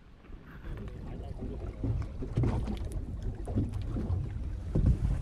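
Open-water noise aboard a small fishing boat: an irregular rumble of wind and water on the microphone, with crackling knocks, growing louder from about two seconds in.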